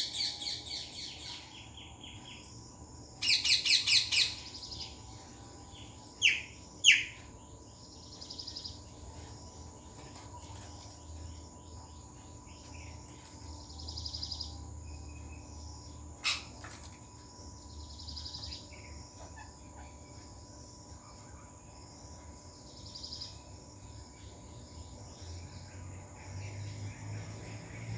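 Parakeets screeching: a quick run of harsh calls about three seconds in, then two loud single calls, and later one sharp call, over fainter high chirping that keeps repeating in the background.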